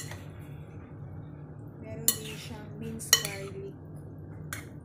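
Metal spoon clinking against a glass bowl while a vegetable salad is tossed. There are about four sharp clinks with a short ring, and the loudest comes about three seconds in.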